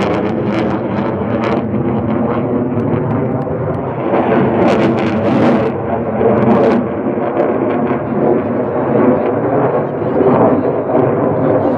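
Military fighter jet engine at high power in flight: a loud, continuous rumble with crackling around the middle.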